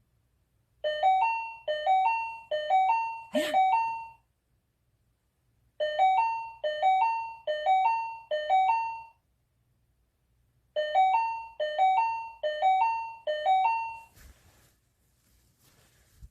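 Electronic doorbell chime, a two-note rising ding-dong struck four times in quick succession, then twice more in groups of four after short pauses. A brief sharp click sounds during the first group.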